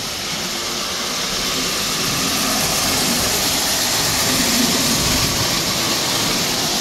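Lionel O-gauge toy train running on three-rail tinplate track: a steady whirring rumble and hiss that slowly grows louder, then holds.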